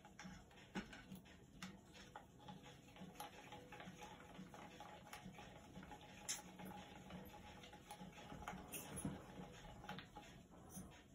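Faint, irregular clicks and taps of a craft stick stirring thinned acrylic paint in a plastic cup.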